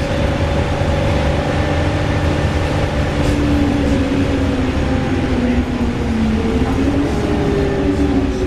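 VDL DB300 double-decker bus under way: a loud whirring whine rides over the low drone of the engine. About six seconds in the whine sags in pitch, then climbs again as the bus changes speed.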